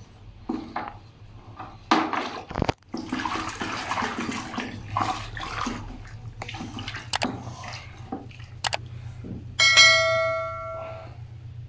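Liquid sloshing and splashing as a carved wooden figure is dunked and turned in a bucket of dark stain. A couple of sharp mouse-type clicks follow, then a loud bright bell ding that rings out and fades, the notification-bell sound effect of a subscribe-button animation.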